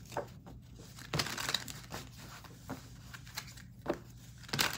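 A deck of cards shuffled by hand: soft, irregular rustles and flicks of card against card, with the loudest near the end.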